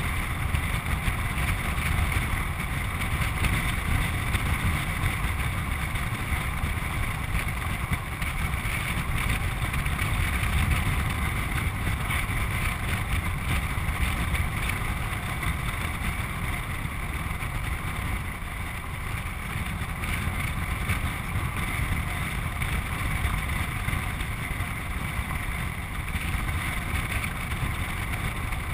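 Land yacht sailing across a dry lake bed: a steady rush of wind buffeting the microphone over the rumble of the craft rolling across the hard surface, with no letup.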